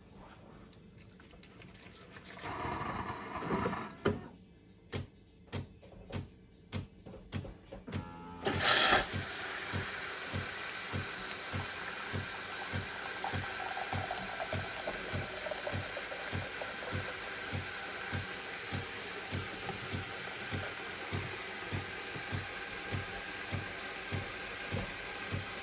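Siemens EQ500 bean-to-cup coffee machine making a drink. First comes a short mechanical whirr, then a series of clicks, then a loud burst about nine seconds in. After that its pump pulses about twice a second under a steady hiss as it dispenses.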